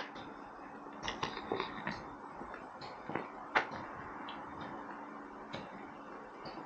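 Faint, irregular clicks and light taps, a small cluster of them about a second in and one sharper click a little after the middle.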